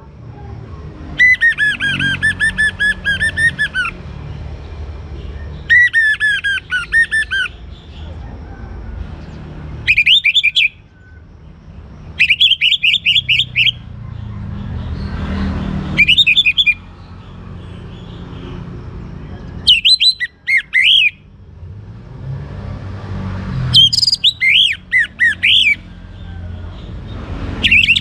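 Orange-headed thrush singing. It gives about eight bursts of rapid, repeated high whistled notes, each lasting one to three seconds, with pauses of a few seconds between them. A steady low rumble runs underneath.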